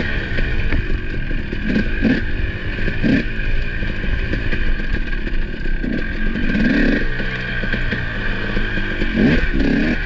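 Husqvarna 300 two-stroke dirt bike engine running at low revs. The revs rise and fall as the throttle is worked, with pickups about a third of the way in, past the middle and near the end.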